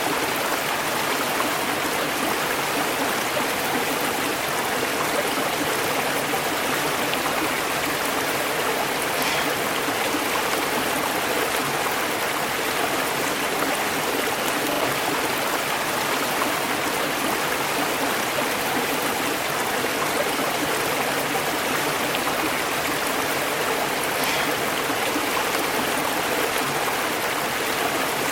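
River water flowing over rocks, a steady, unbroken rushing with some trickling.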